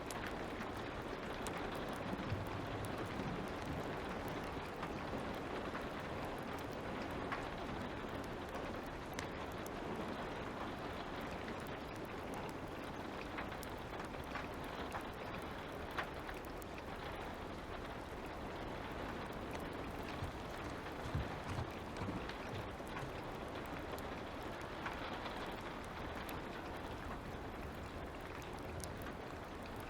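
Light rain falling steadily, with occasional crackles and pops from a wood fire.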